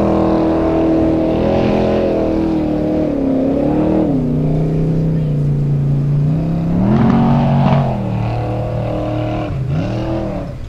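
Formula Offroad car's engine under hard throttle as it climbs a steep dirt slope. It is held at high revs at first, drops about four seconds in, then revs up sharply and falls back twice, near seven and near ten seconds in.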